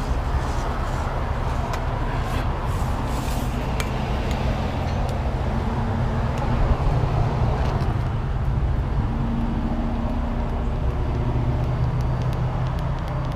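Kenworth heavy wrecker's diesel engine running steadily at idle, a low even drone, with a few light clicks and rattles about two to four seconds in.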